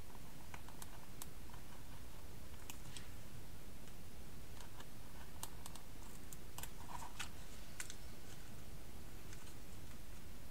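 Craft knife blade working at a small piece of card: a scatter of small, irregular clicks and scratches as a cut oblong that has not gone all the way through is picked free, over a low steady background hum.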